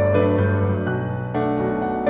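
Background piano music: a soft melody of held notes that change every half second or so.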